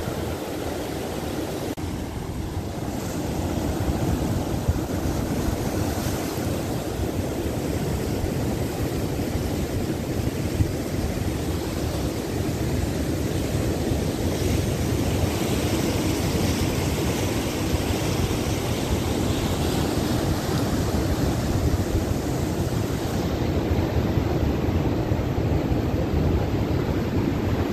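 Ocean surf breaking and washing around the rocks below the pier, a steady rush of noise, with wind rumbling on the microphone.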